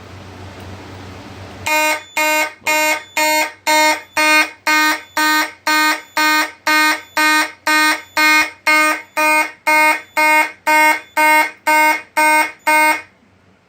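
Simplex 2901-9806 fire alarm horn sounding in march time, a buzzy blast about twice a second, set off by a smoke detector tripped with test smoke. It starts a couple of seconds in and cuts off shortly before the end.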